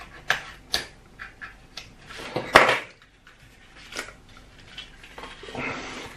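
Small cardboard box being handled and flipped open on a desk: a string of light taps and scrapes, the loudest about two and a half seconds in, with a rustle of cardboard near the end.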